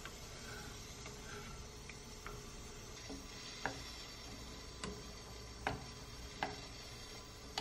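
A spoon stirring doenjang jjigae in a black earthenware pot (ttukbaegi), knocking lightly against the pot's sides as it goes: a few sharp clicks, about one a second, starting a couple of seconds in.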